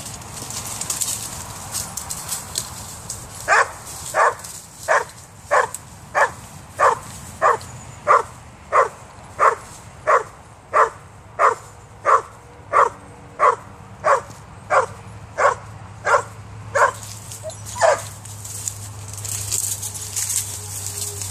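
Vizsla-Weimaraner dog barking at a cat up a tree: a steady run of about twenty barks, roughly three every two seconds, starting a few seconds in and stopping near the end. A rustling noise comes before and after the barks.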